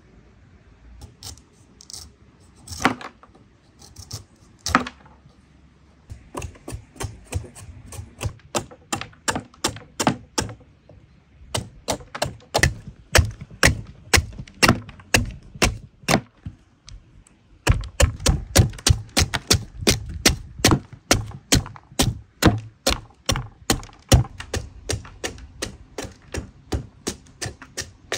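Knife chopping on a cutting board: a few scattered knocks, then a steady run of sharp strokes about two to three a second, which gets faster and louder a little past halfway.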